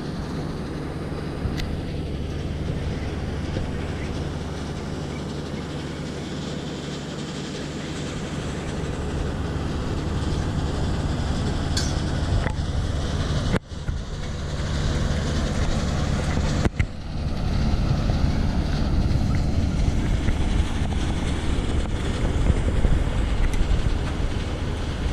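Single-engine Cessna's piston engine and propeller running in a steady drone, with two short breaks about 14 and 17 seconds in, after which it is a little louder.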